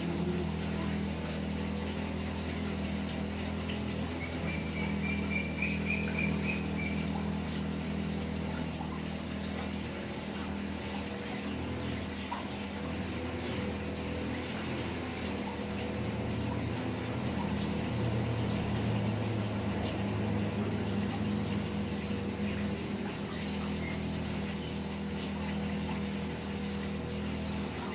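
A steady low hum with an even hiss, like a running fan or pump, with a short run of high chirps about four seconds in.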